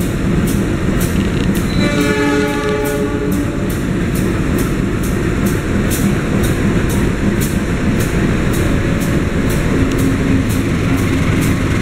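A CC 203 (GE U20C) diesel-electric locomotive runs with a steady, loud engine rumble close by. A train horn sounds once about two seconds in, for about a second and a half. Sharp clicks repeat about twice a second throughout.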